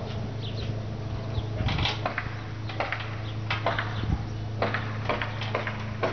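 Winch motor running with a steady low hum, with irregular sharp clicks and ticks over it.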